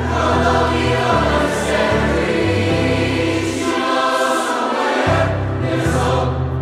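Mixed-voice show choir singing in harmony, holding sustained chords.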